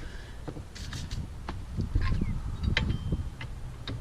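Irregular metal knocks and clanks as a stuck rear wheel hub is worked at to free it from the suspension; about a dozen sharp knocks, unevenly spaced, over a low rumble.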